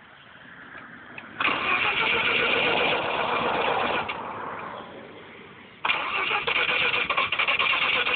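Freshly rebuilt half-bridge-ported turbo rotary engine of a Mazda RX-7 starting up: it fires suddenly about a second and a half in and runs loudly, sinks away over the next couple of seconds, then comes back loud all at once about six seconds in and keeps running.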